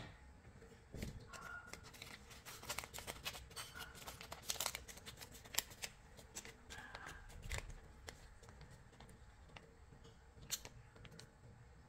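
Paper tulip cupcake liner crinkling and tearing as it is peeled off a baked mini cheesecake: faint crisp crackles, thickest a few seconds in, with a few more later on.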